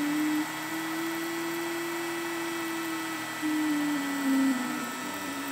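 X-Carve CNC router cutting ice with a small end mill: the spindle whines steadily while the machine's hum shifts up and down in pitch several times as the bit traces a curve. It gets louder for a moment a little past the middle.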